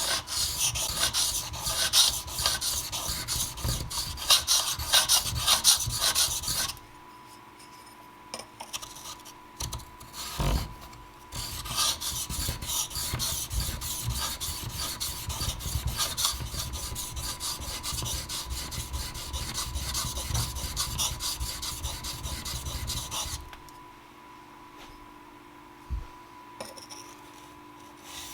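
Steel plane iron stroked rapidly back and forth on a diamond sharpening stone wetted with window cleaner: a steady rasping scrape of steel on diamond grit as a dull edge is ground back. The scraping comes in two long runs with a pause of a few seconds between them, with a single knock in the pause and another near the end.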